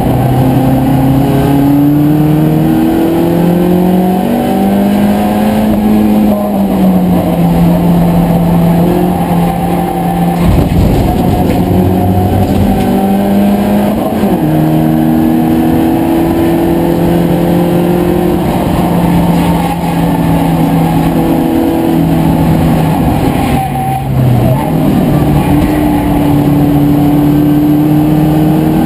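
BMW Compact race car's engine under load, heard loud from inside the cabin. Its pitch climbs over the first few seconds, then holds, with short breaks and dips about ten, fourteen and twenty-four seconds in.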